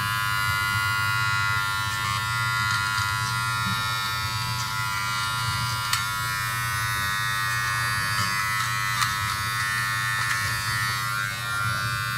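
Braun All-in-One Series 5 trimmer running with its nose-trimmer head, a steady electric buzz as it trims inside the nostril.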